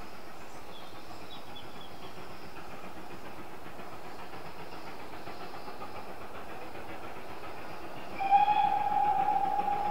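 Steam locomotive whistle giving one long steady blast that starts about eight seconds in, over faint steady background noise.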